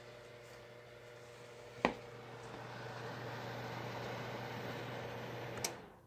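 Spectrafire electric fireplace heater running with a steady electrical hum and blower noise. A click about two seconds in is followed by the airflow growing louder, and another click just before the end cuts the unit off abruptly.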